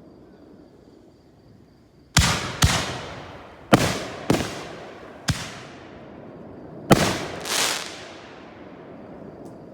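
A 10-shot firework mortar going off: seven sharp bangs in quick, uneven succession over about six seconds, starting about two seconds in, each trailing off in a ringing echo.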